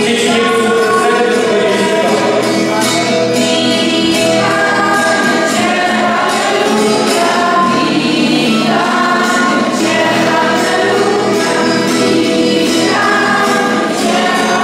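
A group of voices singing a song together, accompanied by a strummed acoustic guitar.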